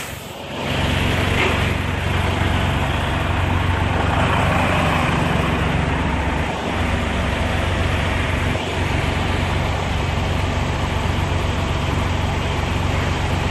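Semi truck's diesel engine idling steadily with a low drone while the rig is held stopped.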